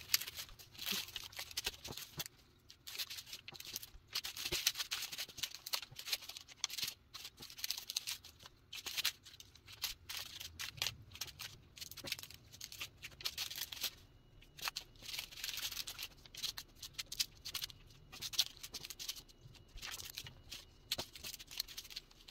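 Small plastic bags of diamond-painting drills crinkling and clicking in irregular bursts as they are picked up, sorted and set down on a wooden table.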